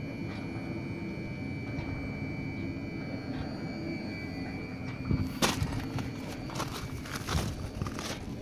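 DeWind D48/4 wind turbine running, with a steady high whine over a low rumble and faint ticks about every three-quarters of a second. From about five seconds in come a series of loud, sharp, irregular knocks and clatter, the rattling the turbine is filmed for.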